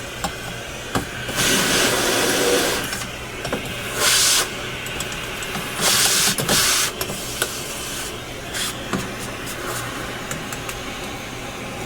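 Small vacuum cleaner sucking dust off an old radio chassis. Its running hum is steady, and the air rushes louder in three bursts of a second or two as the nozzle pulls up dust. Faint clicks come from the nozzle touching the metal.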